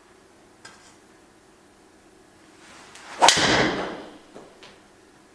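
Ping G425 MAX driver striking a golf ball off a hitting mat: one sharp, loud crack about three seconds in, with a ringing tail that fades over about a second.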